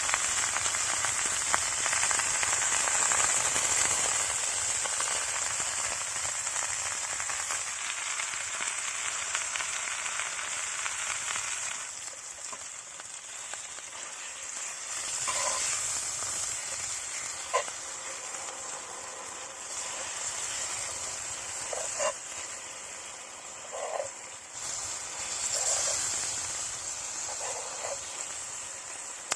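Beef tenderloin sizzling in a cast-iron pan, a steady sizzle that is loudest for the first dozen seconds and then settles quieter. A few short pops and brief higher notes come through in the second half.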